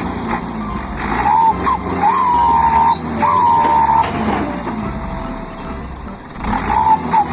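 Light dump truck's diesel engine running while the bed is tipped up, with a whine from the hydraulic hoist that comes in pulses of about a second, each rising at its start. Under it, the load of rocks slides and rumbles out of the bed.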